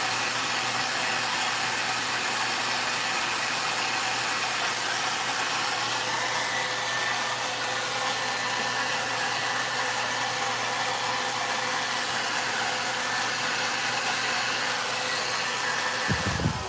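VONE hair dryer running steadily, an even rush of blown air with a faint steady whine. Near the end there is a brief low bump and the sound drops.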